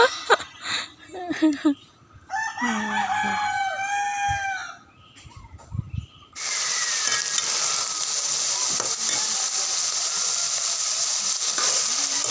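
A rooster crowing once, a long call lasting about two and a half seconds. From about six seconds in, a steady hiss begins and holds.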